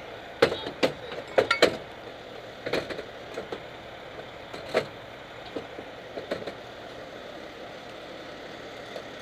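A string of sharp knocks and clacks, bunched in the first two seconds, with a few more up to about six seconds in, over a steady vehicle rumble.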